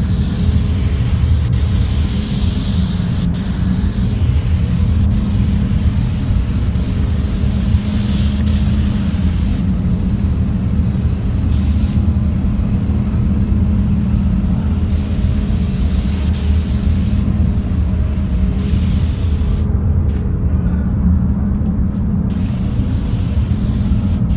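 Paint spray gun hissing as the trigger is pulled and released: one long pass for about the first ten seconds, then several shorter passes of a second or two each, with gaps between. A steady low hum runs underneath.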